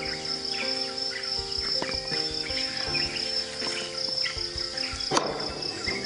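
Insects chirring in one steady, unbroken high band, with light background music below it and a short noisy burst about five seconds in.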